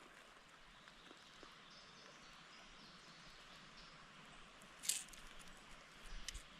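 Faint, steady outdoor background hiss, with a short rustle or clatter about five seconds in and a few small clicks near the end.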